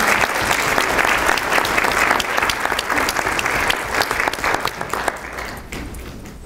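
Audience applause, many hands clapping together, dying away about five seconds in.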